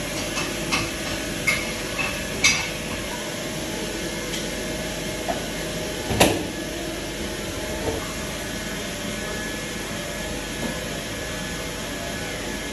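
Kitchen handling sounds as a pizza cutter wheel is rolled through a sheet of puff pastry on baking paper: a few light taps and one louder knock about six seconds in, over a steady background hum.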